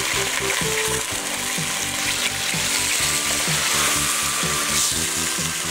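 Beef chunks and sliced onion sizzling in hot olive oil in a steel pot, stirred with a wooden spoon. Background music plays underneath.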